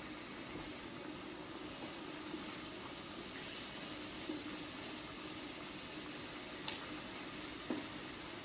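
Electric hot pot with a centre grill plate cooking: ribeye slices sizzling on the plate and broth simmering around them, a steady soft hiss. A few light clicks near the end as tongs touch the grill plate.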